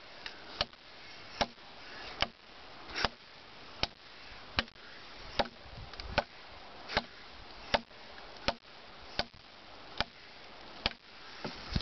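A Busse BWM large fixed-blade knife chopping into a wooden 4x4: a steady run of sharp chops, one about every 0.8 seconds.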